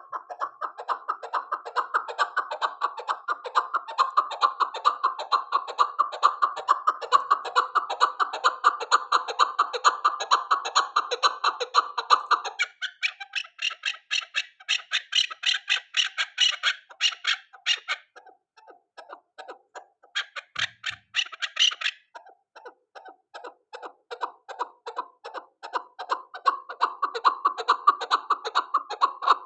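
Chukar partridge (chakor) calling in a rapid, even run of clucking notes. About twelve seconds in, a higher, sharper series of notes takes over and thins out for a moment. The lower clucking comes back near the end.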